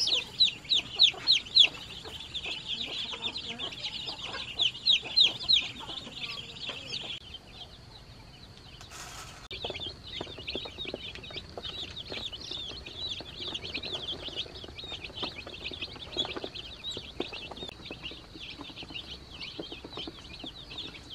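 A brood of baby chicks peeping all together, a dense chorus of shrill, short, falling peeps. A run of louder peeps comes near the start and again around five seconds in, then the chorus drops away briefly with a short hiss before it picks up again and carries on steadily.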